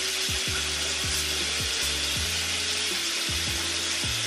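A chill hip-hop background beat, a bass line with soft kick drums, plays over a steady hiss of tap water running into the sink.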